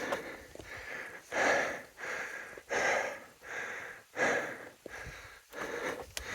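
A hiker's heavy, rhythmic breathing close to the microphone while climbing, about one loud breath every second and a half.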